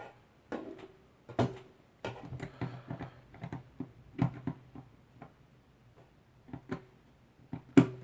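Irregular clicks, taps and light knocks of hands handling Cat6 cable and small plastic network fittings, over a faint low hum.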